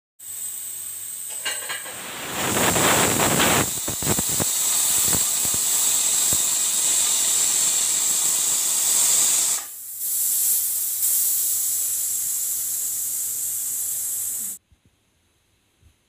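Pressure cooker whistle: steam jetting out under the weighted valve on the lid with a loud, high hiss, rougher and louder about two to four seconds in. It dips briefly just before ten seconds and cuts off abruptly near the end.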